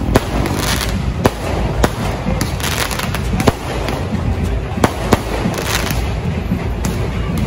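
Aerial fireworks bursting overhead: about ten sharp bangs at irregular intervals with crackling, over a steady background din.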